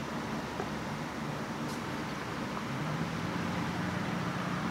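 Steady low background hum over a constant hiss, with no clear single event.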